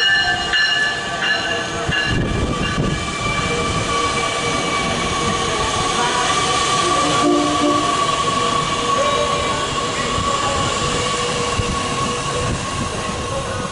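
Metra bilevel gallery passenger cars rolling past, their wheels rumbling on the rails, with a steady high-pitched wheel squeal over the rumble. The rumble grows heavier about two seconds in.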